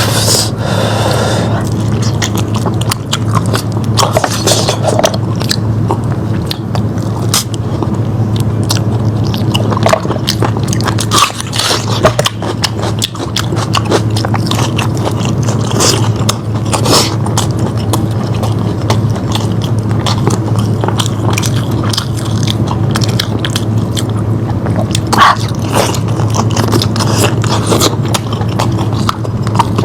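Close-miked mouth sounds of a person eating lamb chops: steady irregular biting, chewing and smacking of meat, with a steady low hum underneath.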